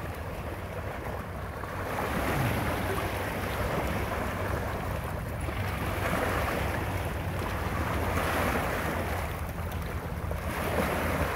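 Small waves washing over a stony shoreline, swelling and fading every few seconds, with wind rumbling on the microphone.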